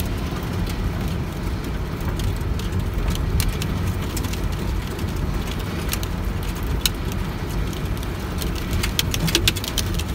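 Car interior on an icy, wet highway: a steady low rumble of tyres and engine, with scattered sharp ticks of icy grains striking the windshield, coming thicker near the end.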